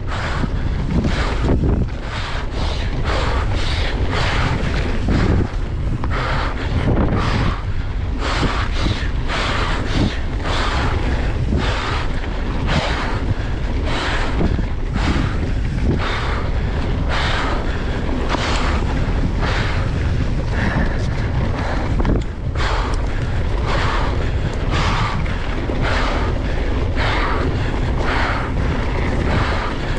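Wind buffeting the microphone on a fast mountain-bike descent: a constant heavy rumble. Frequent short hissing and clattering bursts, about one or two a second, come from the bike's tyres and frame over the dirt trail.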